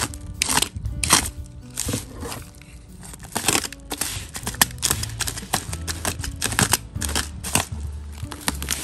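Bubble wrap crinkling and crackling as a box cutter slices and tugs at it, in a string of irregular sharp crackles.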